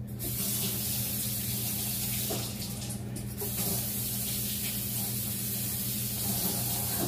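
Kitchen sink faucet turned on and running water steadily into the sink.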